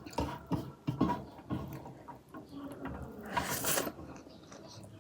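Close-up eating sounds: wet mouth clicks and smacks of chewing rice and saag, with a short hiss about three and a half seconds in.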